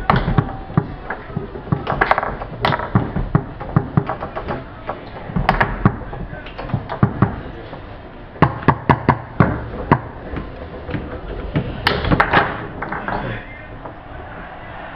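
Tornado foosball table in play: sharp clacks of the ball struck by the rod-mounted players and knocking off the table walls, coming in quick clusters, quieter near the end.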